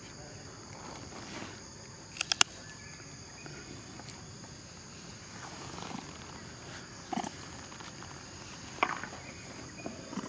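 Steady high-pitched insect chorus, with a few sharp clicks: a quick cluster of three about two seconds in, and single ones later on.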